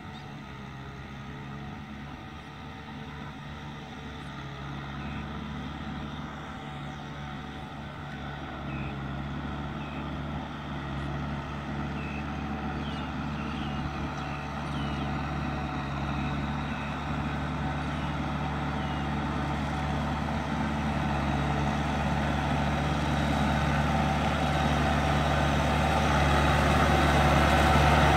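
Farm tractor's diesel engine running at a steady pace as the tractor drives through a muddy field, growing steadily louder as it approaches.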